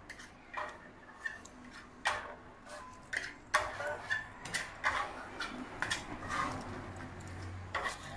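A string of irregular light clicks and clinks, some with a brief ring, with no steady rhythm.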